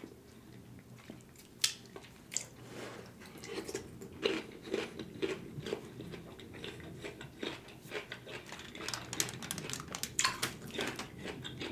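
Close-miked eating: someone chewing and biting food, with irregular wet smacks and clicks that get busier after the first few seconds.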